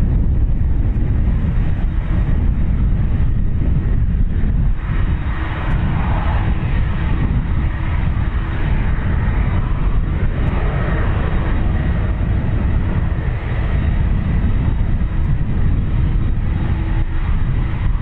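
Airbus A330-203's GE CF6-80E1 turbofans running, a steady loud rumble with a faint whine over it.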